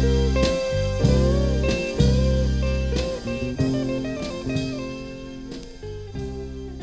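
Instrumental ending of a 1982 Thai song played from a vinyl record: held chords, a wavering gliding melody line and drum beats, fading out steadily as the song ends.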